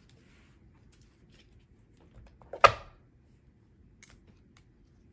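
Mostly quiet room, with a single sharp knock about two and a half seconds in.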